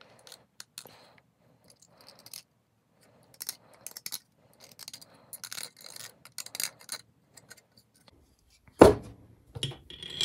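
X-Acto hobby knife scraping and scratching in short strokes at the axle holes of a 3D printed plastic frame wall, trimming off support remnants and burrs. Near the end comes one loud knock as the plastic part is set down on the wooden workbench, then a few light clicks of tools.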